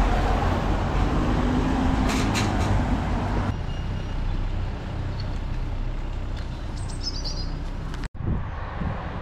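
Road traffic passing on a wet town street, with a low rumble of wind on the microphone. A short bird chirp comes near the end, and the sound drops out for an instant just after it.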